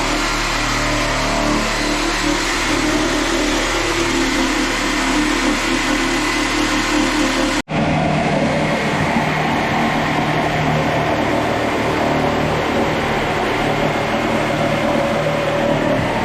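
Power saw with a wood blade running continuously as it cuts through the mobile home's floor, with a momentary dropout a little past halfway before it carries on.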